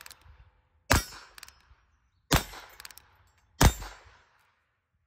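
Heritage Rough Rider single-action revolver firing .22 LR, three shots about a second and a half apart, each cocked by hand. Each crack trails off in a short echo.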